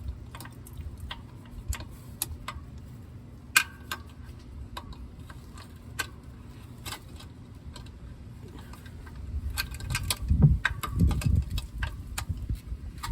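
Scattered metallic clicks and clinks of an oil filter wrench being fitted and worked on a spin-on oil filter, with heavier low thumping and rumbling handling noise from about nine and a half seconds in.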